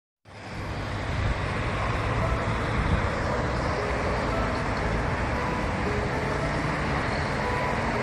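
Road traffic at a city intersection: a steady rumble and tyre hiss of cars and vans passing close by.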